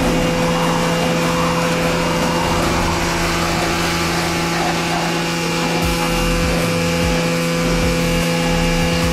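Electric pressure washer running steadily, its motor and pump humming under the spray of the high-pressure water jet hitting wooden fence boards.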